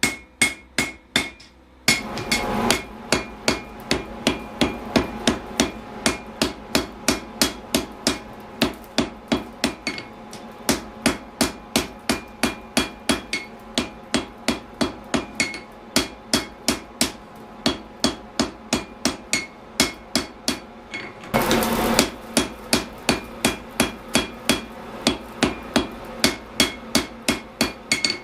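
Hammer blows on hot steel on an anvil while a froe is hand-forged: a steady run of ringing strikes, about three a second. Twice there is a brief rushing noise, about two seconds in and again near the twenty-second mark.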